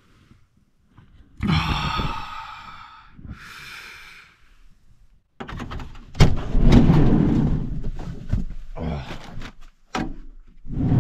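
Sliding side door of a Chevrolet Astro camper van being opened from inside. Two brief scraping, rustling sounds come first. About six seconds in the latch clunks and the door rolls open with a rumble, followed by a few knocks near the end.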